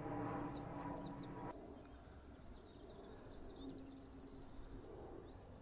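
Small birds singing in short chirps, with a rapid trill about four seconds in. A faint steady hum underneath stops abruptly about a second and a half in.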